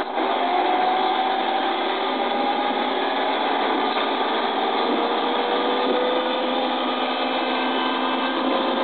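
A motor running steadily, with a few tones in its hum slowly rising in pitch.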